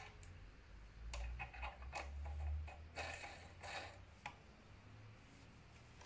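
Sharp metal clicks and light knocks from fitting an adaptor end cap onto a Wahoo Kickr trainer's axle: a cluster of clicks over about three seconds, with a low hum beneath in the middle.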